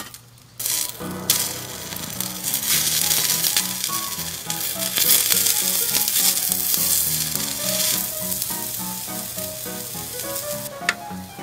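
Zucchini slices sizzling on a small, hot iron griddle heated by solid fuel, the sizzle starting about half a second in as they are laid on the plate. Background music plays underneath.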